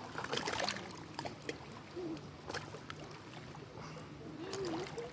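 Small lake waves lapping at the shore in short irregular splashes, with faint distant voices.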